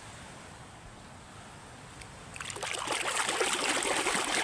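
Water splashing and trickling as a muddy toy is washed, starting about two seconds in after a quieter stretch.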